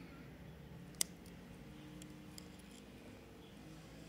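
Small cutters snipping at the thin bare end of a stripped wire: one sharp click about a second in, with a few faint ticks.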